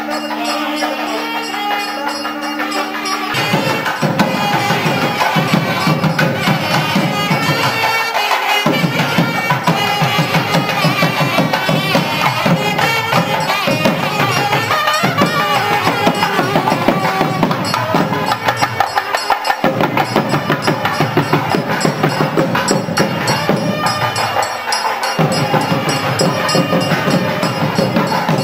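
Traditional Tamil temple music: a reed pipe plays a melody over a steady drone, with drums and small cymbals. The drums come in about three seconds in and drop out briefly a few times.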